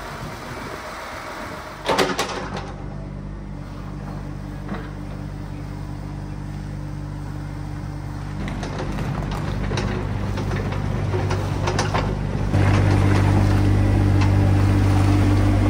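Engine of heavy site machinery running steadily. A sharp knock sounds about two seconds in, and the engine gets louder about three-quarters of the way through.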